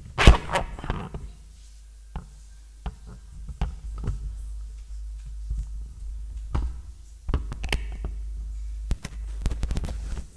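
Stand microphone being handled and adjusted while live: irregular thumps, knocks and clicks, the loudest just after the start, over a steady low hum.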